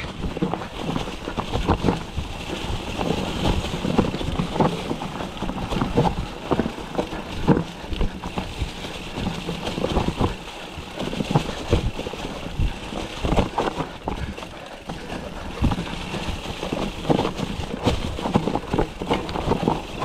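Mountain bike riding fast down a rough trail: frequent irregular knocks and rattles as the bike hits bumps, over a steady rushing noise.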